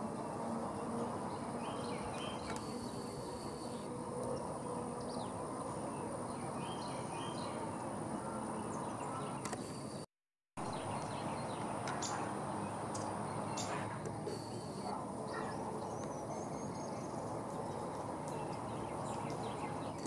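Outdoor woodland ambience: small birds giving short scattered chirps over a steady background hiss, with a constant thin high-pitched tone. The sound drops out for about half a second about halfway through.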